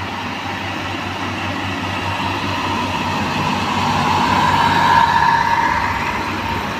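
Engine of a self-propelled railway track-renewal machine running as the machine rolls past close by on the rails. It grows louder to a peak about five seconds in, with a high whine at its loudest, then eases off.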